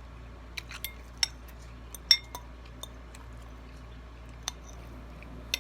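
Cutlery clinking against a bowl during a meal: a scatter of short, light clinks, the sharpest about two seconds in, over a faint steady hum.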